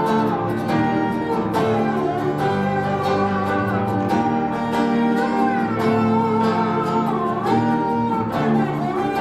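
Instrumental break in an acoustic folk song: steady acoustic guitar strumming under a melody line that slides up and down.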